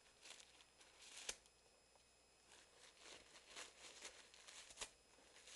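Faint, irregular rustling and tearing of paper as a Lhasa Apso chews and rips at it, with a sharper tick about a second in and another near the end.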